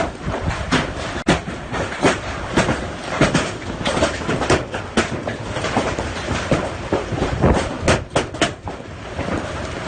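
Hail pelting down: a steady roar of falling hailstones with frequent, irregular sharp knocks as stones strike, several a second.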